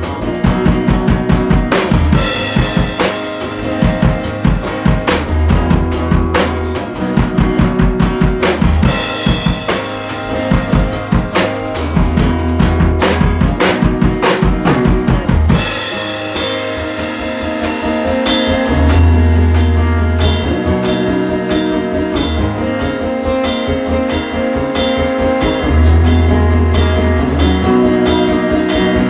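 Live rock jam of guitar and drum kit. The drums play a busy groove for the first half, then mostly drop out about halfway, leaving the guitar over sustained low notes.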